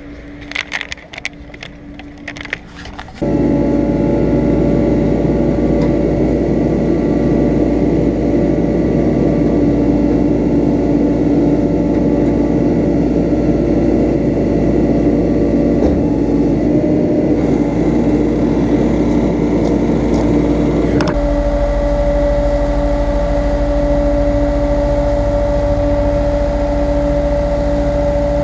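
Car-hauler truck's engine running, with its hydraulics driving the tilted bed that lowers an SUV to the street: a loud, steady hum with a fixed whine. It starts suddenly about three seconds in, and its tone shifts once about two-thirds of the way through.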